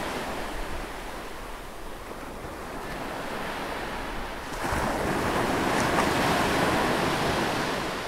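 A steady rushing noise like breaking surf, swelling about halfway through and easing off near the end.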